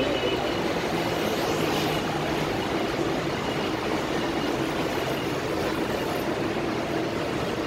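Steady rushing street noise of passing traffic, with wind blowing across the phone's microphone.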